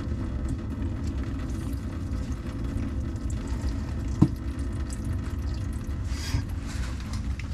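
Water running steadily from an open supply line under the sink, which cannot be shut off because the building's main shutoff does not work properly. A single sharp click about four seconds in.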